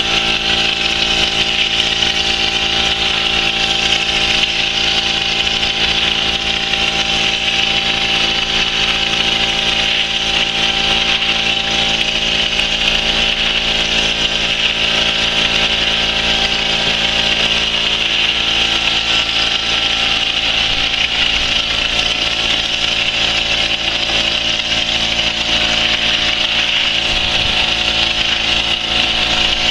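Cetec BIGTEX texture sprayer at work: the spray gun's steady hiss of compressed air driving texture coating out of a 7 mm nozzle, over a steady machine hum with several fixed tones.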